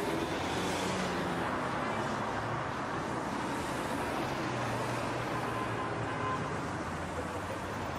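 Car driving, heard from inside the cabin: a steady mix of tyre-on-road noise and engine hum.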